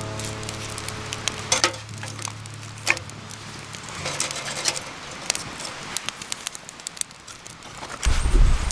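Wood bonfire crackling and popping with scattered sharp snaps, over soft background music that fades out about halfway. A loud low rumble comes in near the end.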